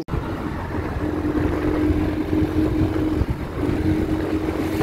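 Travel noise from a vehicle moving through town traffic: a steady low rumble with a steady hum in it. The hum breaks off briefly past the middle and then comes back.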